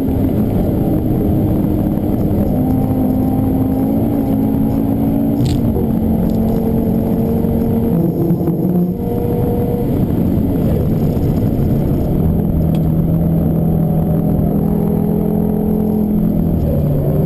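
Audi TT RS turbocharged 2.5-litre five-cylinder engine working hard at high speed, heard from inside the cabin over tyre and wind noise. Its pitch steps with a brief drop in loudness about nine seconds in, typical of an upshift, and it settles to a lower steady note for the last few seconds.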